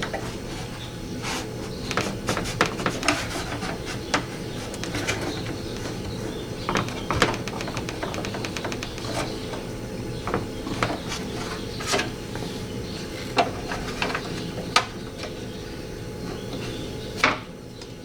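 Irregular clicks and clinks of small metal and plastic window-regulator parts, clips and bolts, being handled and fitted inside a car door, with a louder knock near the end.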